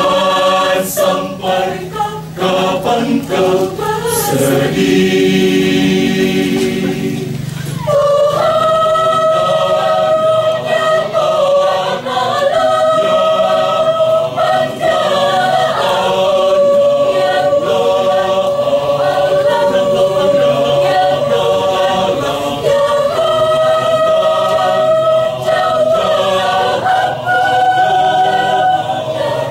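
Choir singing in several parts, with long held chords through most of the passage.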